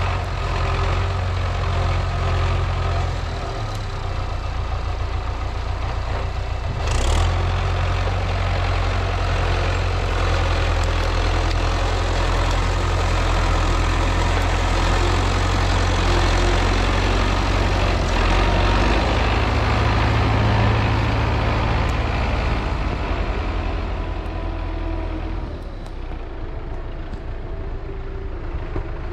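MTZ-82 tractor's diesel engine running steadily, its note shifting a few times as it works. There is a single sharp knock about seven seconds in, and the engine drops lower near the end.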